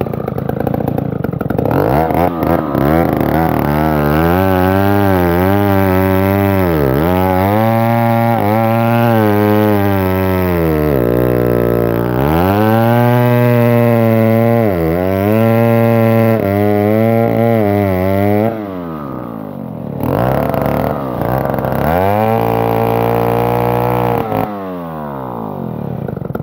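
A Stihl 070 two-stroke chainsaw ripping a log lengthwise at full throttle, its engine pitch sagging again and again as the chain bites and recovering as the load eases. The engine drops back to a lower idle at about 18 seconds, revs up again, and falls back about 24 seconds in.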